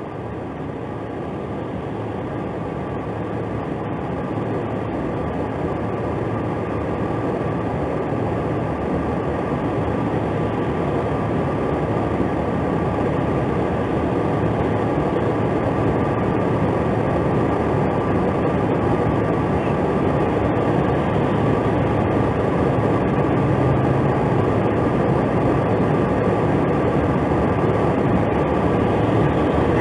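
Steady rushing noise of highway traffic going by on a snowy road, picked up by a patrol car's dashcam; it grows slowly louder.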